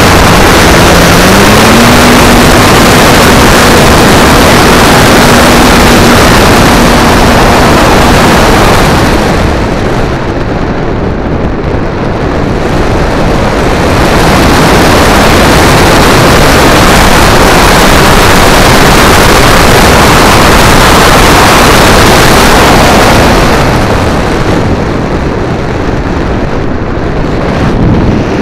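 Loud wind rush and the hum of a model plane's motor and propeller, picked up by a keychain camera riding on the plane in flight. The propeller hum rises in pitch about a second in and holds steady; twice the rush drops away for a few seconds.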